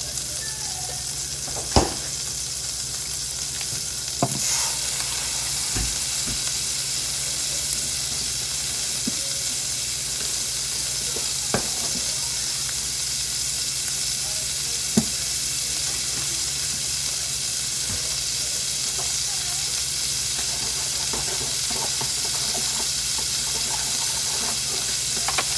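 Butter melting and sizzling in a hot frying pan, a steady hiss, with a few sharp knocks: the loudest about two seconds in, fainter ones later.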